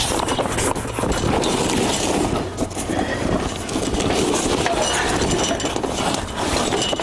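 Rustling with light clicks and knocks, steady throughout: a folded pop-up canopy tent frame and its bag being handled and stood up.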